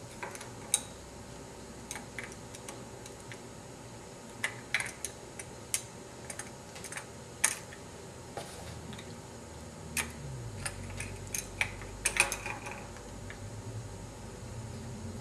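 Plastic Lego pieces clicking and rattling as a small Lego garbage cart is handled and tipped by hand into a Lego truck's hopper. Scattered sharp clicks, with a quick cluster of them about twelve seconds in.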